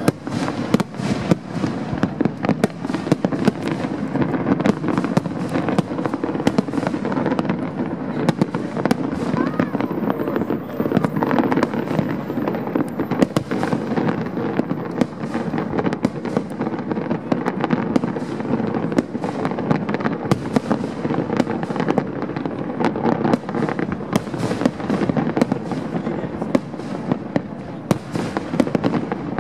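Large fireworks display going off in a dense, unbroken barrage of bangs and crackles as many shells burst at once.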